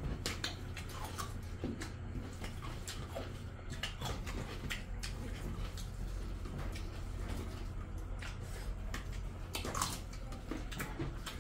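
Hand-eating sounds: fingers mixing rice and curry on steel plates and mouths chewing, giving scattered small smacks, squelches and clicks, with a slightly louder cluster near the end. A steady low hum runs underneath.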